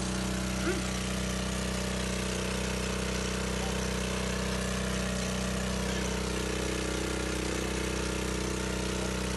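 Small engine-driven pump running steadily at constant speed, pumping drilling mud through a hose into the drill pipe during manual borehole drilling.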